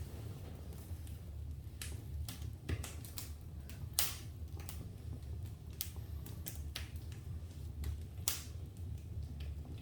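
Wood fire in a fireplace crackling, with irregular sharp pops, the loudest about four seconds in and another near the end, over a steady low rumble.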